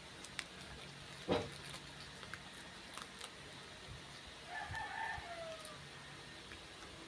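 A rooster crows once, a call of about a second whose pitch drops at the end. Earlier there is a single sharp knock, the loudest sound.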